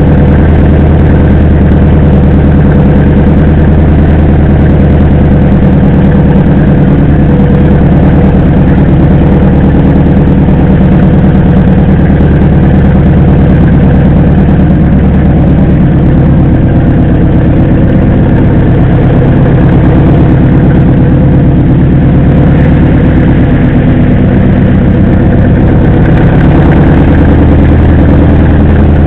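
Mercedes-Benz G-wagen's engine and drivetrain running, heard from a camera mounted under the chassis by the front wheel: a loud, steady low drone that eases somewhat past the middle and picks up again near the end.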